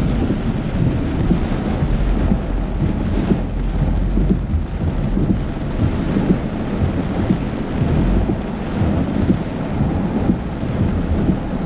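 Heavy rain beating on a moving car, heard from inside, with thunder rumbling low under it.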